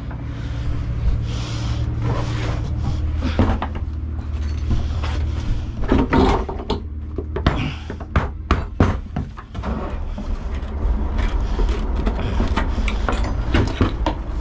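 An engine running with a steady low drone, under a run of wooden and metal knocks and clunks as a heavy part is worked and lifted.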